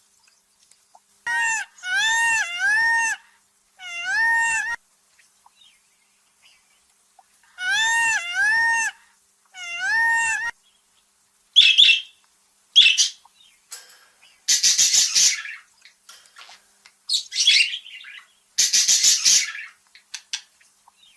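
A cat meowing: short, high, rising-and-falling mews in quick runs over the first half, followed by a series of hissing bursts about a second long each.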